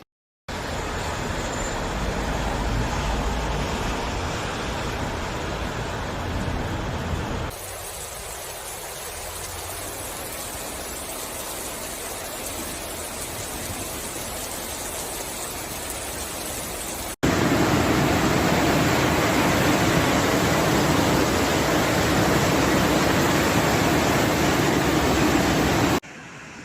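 Heavy rain and rushing floodwater: a steady, loud rushing noise in three clips joined by abrupt cuts about 7 and 17 seconds in, the last the loudest.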